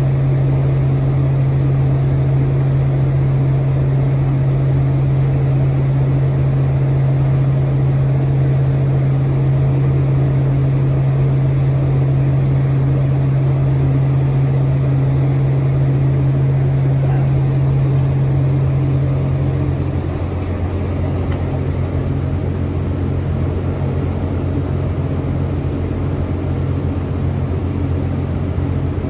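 Steady machinery hum with a strong low drone. About twenty seconds in, the drone shifts lower and the sound gets slightly quieter.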